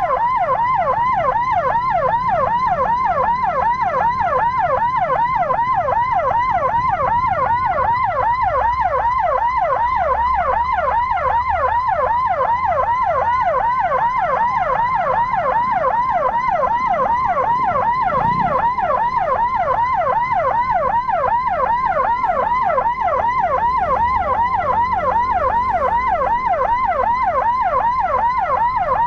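Electronic siren sounding a fast yelp, its pitch sweeping up over and over, several times a second, without a break, over a low vehicle rumble.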